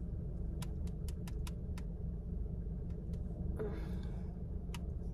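Steady low rumble with a faint hum, with a few faint sharp clicks and a short hiss a little over halfway through.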